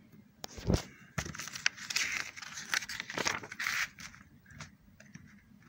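Paper pages of a printed manual being handled and turned over: a knock less than a second in, then a few seconds of crinkly rustling with small clicks.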